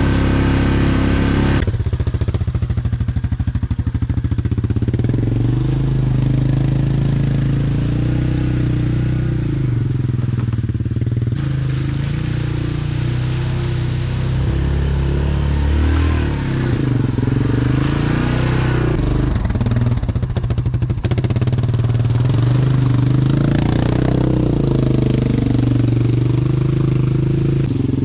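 Yamaha Grizzly ATV engine running under load, the throttle rising and falling several times, with some clatter.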